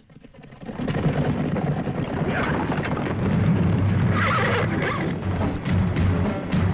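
Horses galloping, a dense clatter of hooves mixed with music; it swells up about a second in, with sharper hoof strikes standing out near the end.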